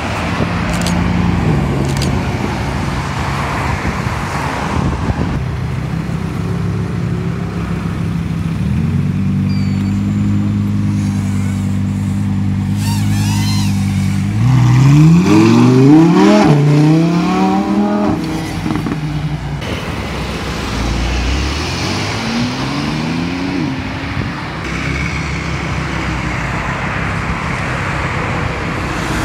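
Sports car engines running at low speed, then one accelerating hard around the middle with its pitch rising through successive gear changes, the loudest part. Another car accelerates with a rising pitch a few seconds later.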